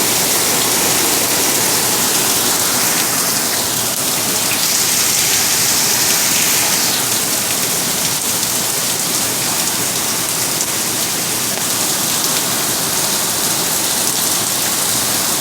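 Heavy rain pouring steadily in a thunderstorm, with a higher hiss that swells for a couple of seconds about five seconds in.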